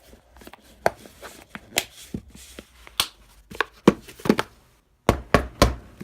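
Small survival-kit items being packed back into their compact hard box: an irregular series of sharp clicks, taps and knocks, with a cluster of louder knocks near the end.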